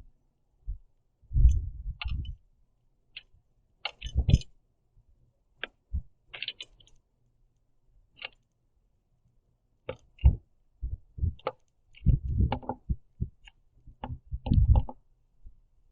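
House sparrow pecking at sunflower seeds and hopping on a platform bird feeder: irregular clicks and taps with several heavier thumps.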